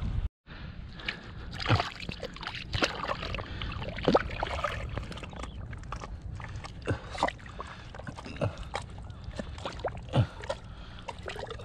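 Rubber boots squelching through soft, wet tidal mud. Several wet sucking sounds drop quickly in pitch, a second or few apart, as the boots pull free. A steady patter of small pops and clicks from the mud runs underneath.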